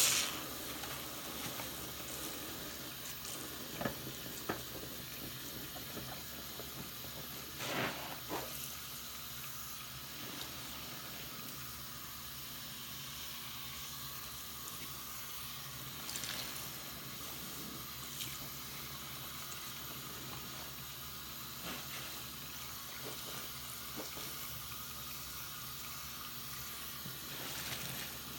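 Faucet running steadily into a sink full of soapsuds, with a few short wet squelches as a soapy bath sponge is squeezed and wrung out by hand.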